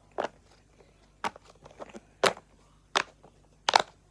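Bubbles of a rainbow flower-shaped silicone pop-it fidget being pushed through one by one, giving about six sharp pops at irregular intervals. This is the toy's "bad side", the side that pops less well.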